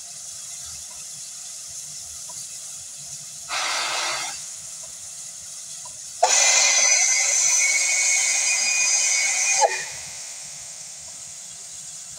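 Steam locomotive venting steam: a steady background hiss, a short loud blast of hissing about three and a half seconds in, then a longer, louder blast from about six seconds in that lasts some three and a half seconds and cuts off suddenly.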